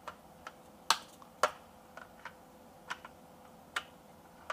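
Plastic shape-sorter blocks clicking and knocking against the plastic toy cube as a toddler handles them and pushes them into its holes. About nine sharp taps, with two louder knocks about a second and a second and a half in.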